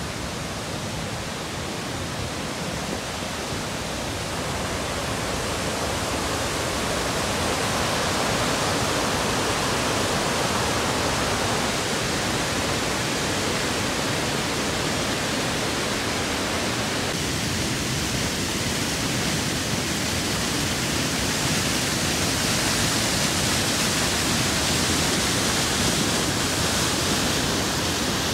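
Alberta Falls, a mountain stream cascading over rocks: a steady rush of white water that swells over the first several seconds and turns brighter and hissier in the second half.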